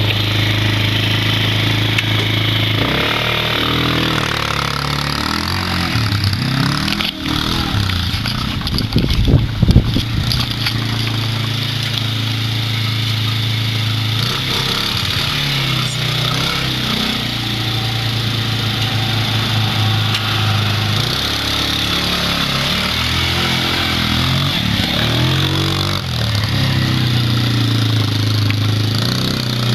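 Arctic Cat 90 youth ATV engine running while being ridden, its revs rising and falling several times, loudest about a third of the way in.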